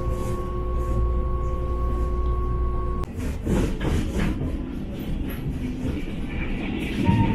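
Train noise: a low rumble with a steady whine that cuts off suddenly about three seconds in, followed by irregular rattling and rail noise.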